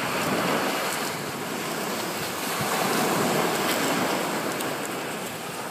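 Small waves washing up onto the sand, the rush swelling to its loudest about three seconds in, with wind noise on the microphone.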